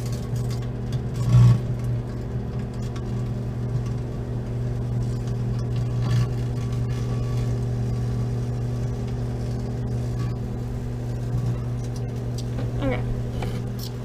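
Microwave oven running with a steady low electrical hum. A few short pops or crackles come from the metal-foil soy sauce packets heating inside, the loudest about a second and a half in.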